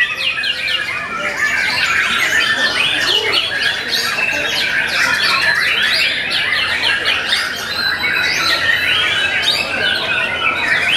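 Several caged white-rumped shamas (murai batu) singing at once as they compete, a dense, continuous mix of rapid whistled notes and trills.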